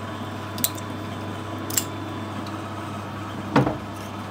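Small brass wire brush scrubbing inside a lathe tailstock's Morse taper bore, metal rattling against metal with a couple of light clicks and a louder knock about three and a half seconds in, over a steady low hum.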